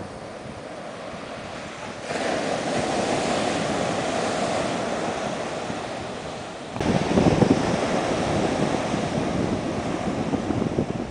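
Ocean surf breaking and washing up a sandy beach, mixed with wind buffeting the microphone. The rushing noise jumps louder about two seconds in and again about seven seconds in, turning gustier in the later part.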